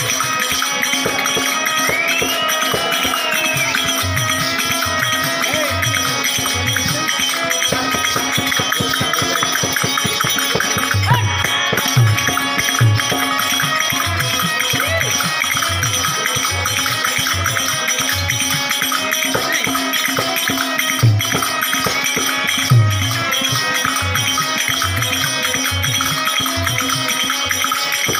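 Music accompanying a Telugu street-theatre (veedhi natakam) dance: a held drone tone and jingling, rattle-like percussion over steady drum beats. A few heavier drum strokes stand out near the middle and again later on.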